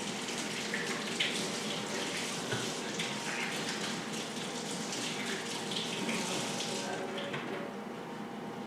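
Water running from a kitchen tap into a sink, splashing steadily, with a few light knocks, the sharpest about a second in.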